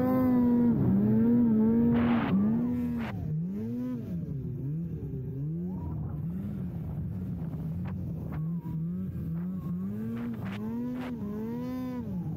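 Snowmobile engine running at high, steady revs, then the revs rising and falling over and over, about once a second, as the throttle is worked.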